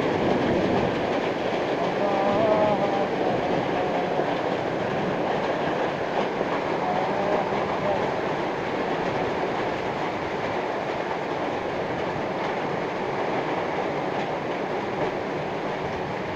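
Heavy rain driven by strong wind: a dense, steady rushing that eases slightly toward the end. Faint shouting voices break through twice.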